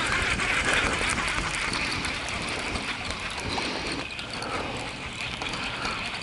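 Fishing reel being cranked steadily during a lure retrieve, its gears giving a continuous whir.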